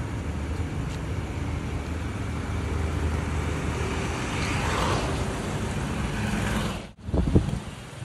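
Steady low vehicle and road-traffic rumble with wind on the microphone; a rushing noise swells and fades about halfway through. The sound cuts out abruptly near the end and is followed by a short thump.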